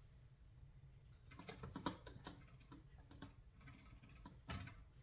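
Faint, scattered taps and clicks as hands pull apart and press bread dough in the metal bowl of a kitchen scale, with one louder knock near the end.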